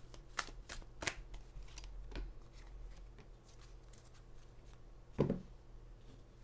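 Oracle of the Angels cards being shuffled by hand: a run of quick, soft card snaps and flicks that thins out after the first two to three seconds. A brief low sound about five seconds in.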